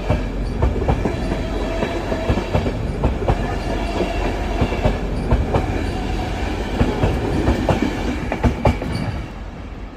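A passenger train pulling out of the station and gathering speed, its wheels clacking over rail joints and points with a steady machinery hum underneath. The sound drops away about nine seconds in as the train moves off.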